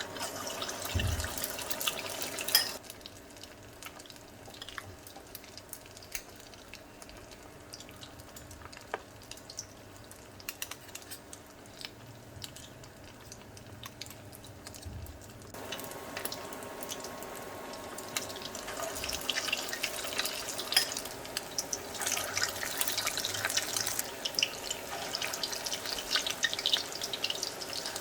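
Chicken keema pakoras deep-frying in hot oil, a steady sizzle with many small crackles. It drops quieter at about 3 s and picks up again at about 15 s, growing busier toward the end.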